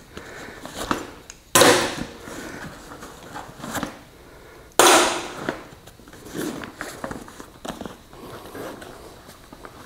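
Metal hand tools clinking and rattling as they are pulled from a canvas tool bag and set down on a diamond-plate tabletop, with two sharp, loud clatters, about a second and a half in and again about five seconds in.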